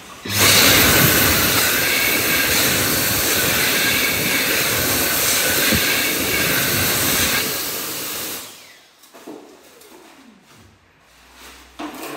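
Dyson Airblade AB14 hand dryer switching on as a hand enters the slot, blowing a loud, steady jet of air with a high whine. The air cuts off and fades out about eight seconds in.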